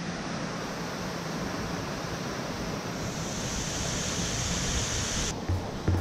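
Small waterfall pouring over a rock ledge into a pool: a steady rushing of water, with the hiss growing brighter in the later seconds. It cuts off abruptly near the end, followed by a couple of low thumps.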